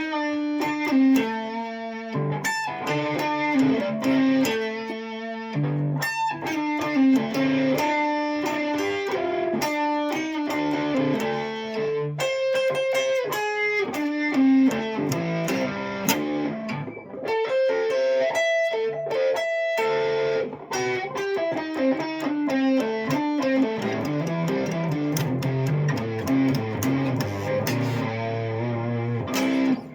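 Guitar music: a run of plucked guitar notes over lower bass notes, stopping just before the end.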